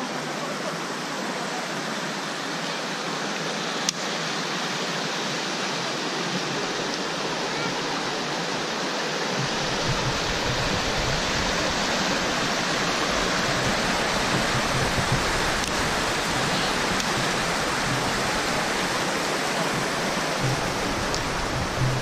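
Waterfall and shallow rapids rushing over rock ledges: a steady hiss of running water. A deeper rumble joins about nine seconds in.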